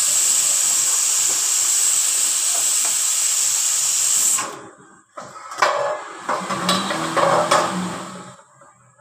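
A loud, steady hiss that cuts off suddenly about four seconds in, followed by a few irregular knocks and clatter with a low hum for about three seconds.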